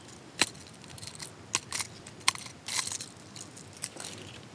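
A series of sharp, irregular clicks and crunching as metal fishing pliers and the treble hooks of a Savage Gear 3D Duck lure are worked free from a largemouth bass's mouth, with handling noise from the fish.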